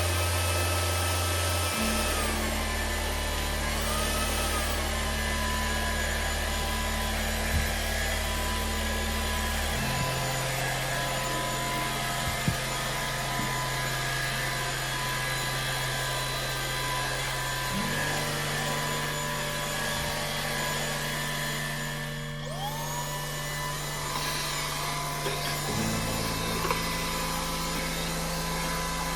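VOSFEEL Z11 cordless stick vacuum motor running with a steady high whine over background music. The whine dips and recovers a couple of times in the first few seconds. Later, past the two-thirds mark, it drops out briefly and comes back with a rising whine as the motor spins up again.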